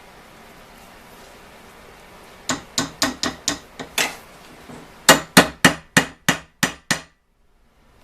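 Hand hammer striking a Model T transmission pedal assembly in two quick runs of about seven blows each, roughly three a second, the second run louder. The sound cuts off suddenly near the end.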